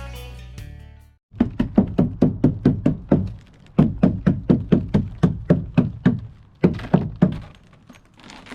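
Rapid run of knocks, about four or five a second, from ice and frost being knocked off a porch roof, with a short pause about three seconds in and a few slower blows near the end. An acoustic guitar tune fades out at the start.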